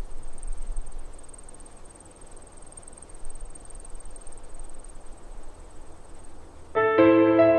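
Outdoor countryside ambience with a steady, high-pitched insect trill over a faint low rumble. Soft piano music comes in near the end.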